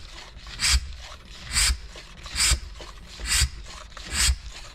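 Hand vacuum pump on an OEM Tools oil extractor being worked by its handle to draw a vacuum for pulling engine oil: a short hiss of air with a low thump at each stroke, five even strokes a little under a second apart.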